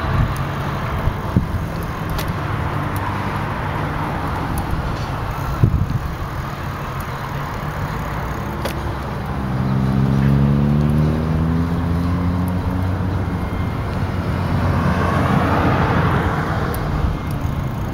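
Road traffic passing on the street alongside. A vehicle engine drone rises slightly in pitch around the middle, and a tyre whoosh swells and fades near the end.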